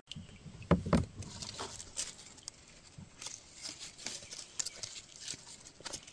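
Leaves and twigs rustling and crackling as a hand handles a fruiting branch, with two louder knocks about a second in.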